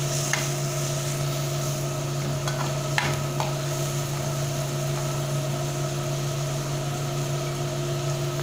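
Bacon, onion and garlic sizzling in a metal frying pan while a metal spoon stirs and scrapes through them, with a few sharp clicks of the spoon against the pan. A steady low hum runs underneath.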